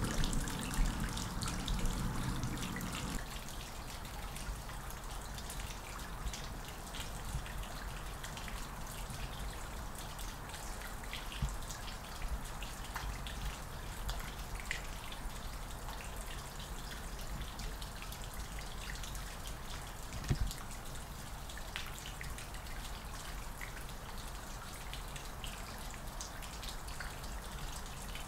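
Light dripping water: many small, scattered drips over a steady low rumble. For about the first three seconds a louder running-water sound is also heard, which then stops.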